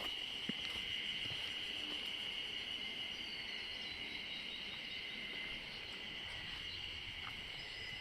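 Insects trilling steadily: a continuous high-pitched drone.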